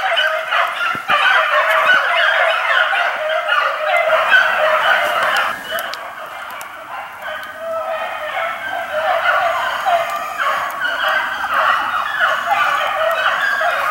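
A continuous chorus of many overlapping animal calls, short honking or yelping cries crowding on top of one another. They ease off a little about six seconds in, then build up again.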